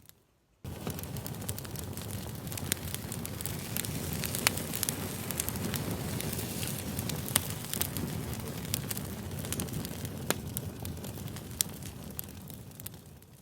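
Campfire crackling: a steady hiss of burning wood with frequent sharp pops. It starts abruptly after a brief silence and fades out near the end.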